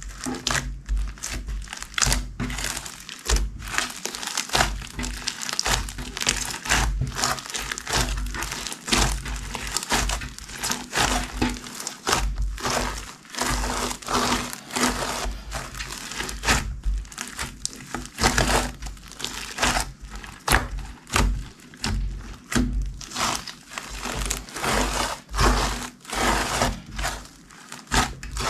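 Slime being squished and kneaded by hand, with dense, irregular crackling and popping and soft low thumps throughout.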